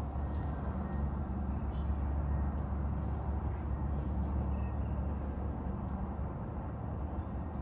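Steady low mechanical hum, like an idling engine or machinery, over an outdoor background.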